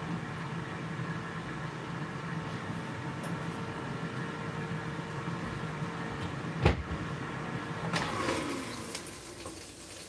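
Air fryer fan running with a steady hum. A sharp click comes about two-thirds through, and near the end the fan winds down with a falling pitch.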